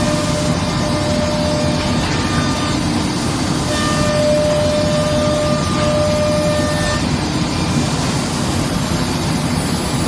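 QUICK UA-481 CNC router's spindle routing a wooden panel: a loud, steady machine noise with a whine that comes and goes and stops about seven seconds in.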